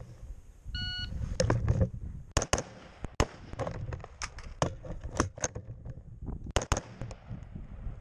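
A short electronic shot-timer beep, then a string of AR-15 rifle shots fired in uneven pairs and singles: double taps and hammers.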